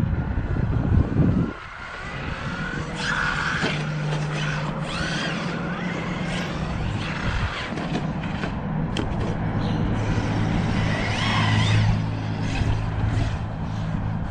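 Losi Super Baja Rey large-scale electric RC truck running over snow and ice, its motor whine rising and falling several times with bursts of throttle over a steady low hum. A loud low rumble comes before it, in the first second and a half.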